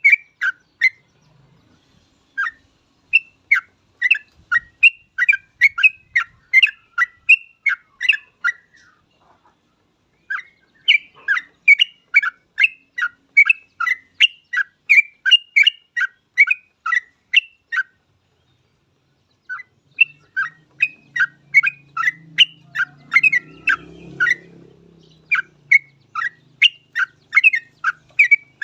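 Yellow-vented bulbul (trucuk) singing in full voice: quick runs of short chirping notes, about three or four a second, in three long bursts broken by two short pauses.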